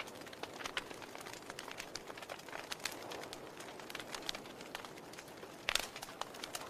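Wood logs burning in a fireplace: a faint hiss under frequent, irregular small crackles and pops, with one louder pop near the end.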